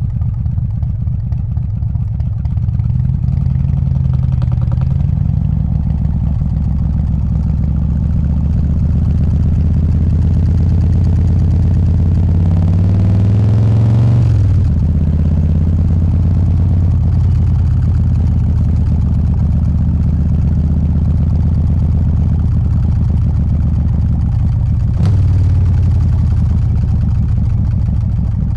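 Harley-Davidson Softail's 124 cubic inch S&S Evo V-twin engine running loud at low city speed. About halfway through it revs up with a rising pitch for a couple of seconds, then falls away sharply and settles back to a steady run.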